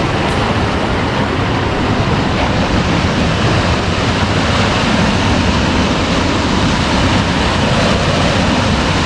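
Loud, steady rush of a waterfall on the McCloud River, with no breaks or separate events.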